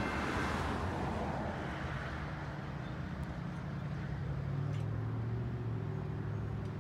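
Diesel locomotive of an approaching train running in the distance, its low engine hum growing louder about halfway through.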